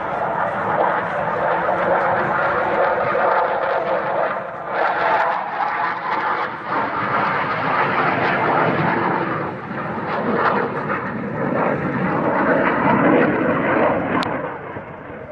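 Blue Angels F/A-18 Hornet jet flying past, its engines making a loud, steady jet noise that swells and dips and fades near the end.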